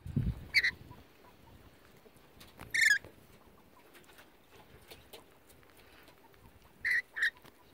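Rainbow lorikeets giving short, sharp screeches, four in all: one just after a low thump at the very start, one near the three-second mark, and two close together near the end.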